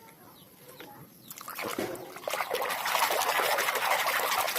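Water trickling and splashing as a muddy toy is rinsed clean. It starts about a second in.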